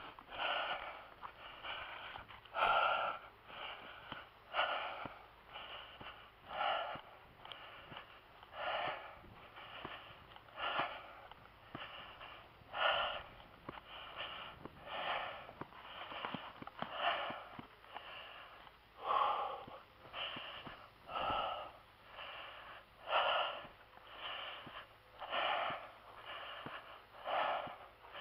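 A man breathing hard and rhythmically close to the microphone, a loud breath about every two seconds with softer ones between. He is out of breath from carrying a heavy beehive.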